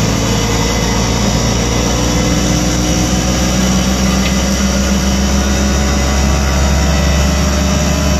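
Auto-rickshaw engine running steadily as the rickshaw drives, heard from inside its open passenger cabin with a constant low hum and road noise.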